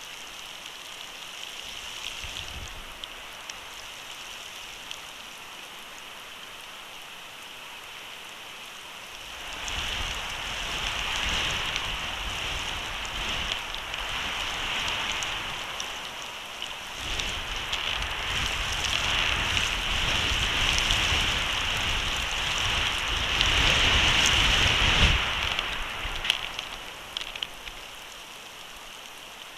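Storm on an outdoor nest-cam microphone: a steady rain-like hiss of falling precipitation with a few small ticks. About a third of the way in, wind gusts start buffeting the microphone, building to a peak near the end before easing off.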